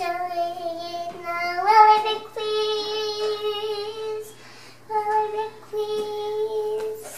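A young child singing a song in long, drawn-out notes, the pitch stepping up during the first phrase, with short pauses between phrases.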